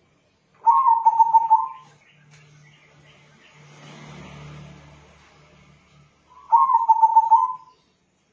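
Crossbred local zebra dove (perkutut) cooing. Two quick, trilling coo phrases about a second long each, one near the start and one about six seconds later.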